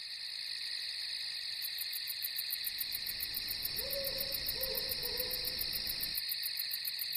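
Night-time nature ambience: a steady high chirring of crickets, with an owl giving three short hoots about four to five and a half seconds in.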